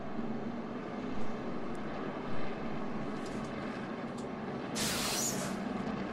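NASCAR Cup stock cars' V8 engines making a steady drone in the broadcast's track audio. There is a short burst of hiss about five seconds in.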